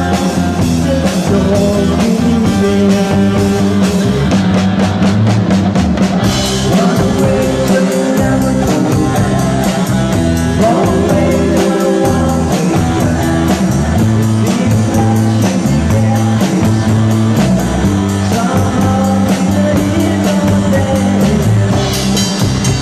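A live rock band playing a song: a drum kit keeps a steady beat with cymbals, under a man singing into a microphone.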